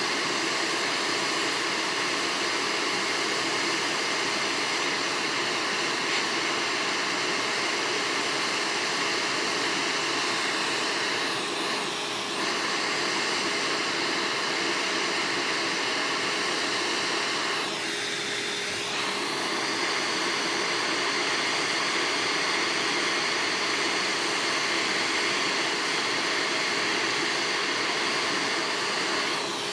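JBC hot-air rework station blowing a steady hiss of hot air at 400 °C and 80% airflow onto a phone's CPU to melt its solder and lift the chip off the board. The airflow sound dips briefly twice, a little before halfway and again about two-thirds in.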